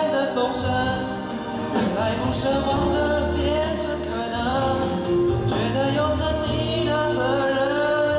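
A man singing a Mandarin pop song live into a microphone over a karaoke backing track.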